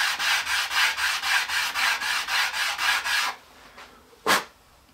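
A small wooden block rubbed back and forth by hand on flat sandpaper, about four strokes a second, for a light sanding of its freshly routed vent grooves. The strokes stop a little over three seconds in, and one short sharp knock follows about a second later.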